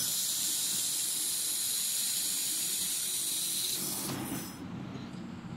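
Handheld fiber laser welder firing on thin steel, a steady high hiss that cuts off about four and a half seconds in, over a low steady hum.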